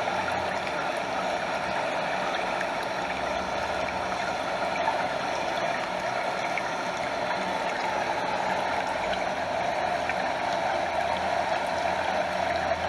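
Stream water flowing and splashing steadily in an even, unbroken rush.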